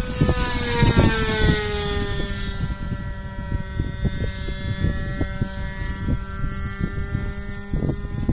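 The .61 glow engine of a radio-controlled model airplane running at high speed in flight, a thin buzzing drone; its pitch drops over the first couple of seconds, then holds steady. Irregular low rumbling from wind on the microphone runs under it.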